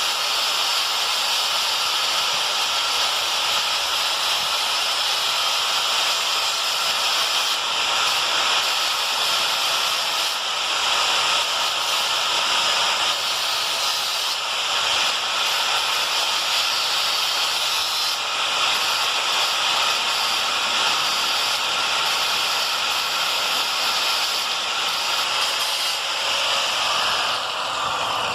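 Steady grinding hiss of a power abrasive tool, a grinder or sander, working the steel of an old knife blade, dying away near the end.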